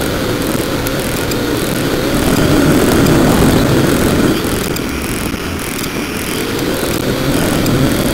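Drone's motors and propellers buzzing loudly, picked up by the drone's own onboard camera. The pitch wavers up and down as the motors change speed, and it eases off briefly about halfway through.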